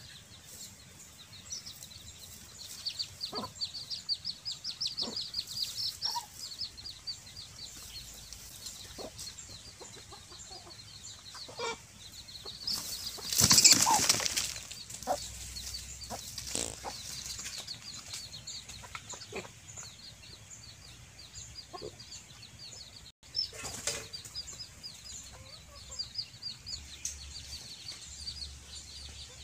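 A chicken flapping its wings in one short, loud burst about halfway through, over rapid high-pitched chirping and a few scattered clucks.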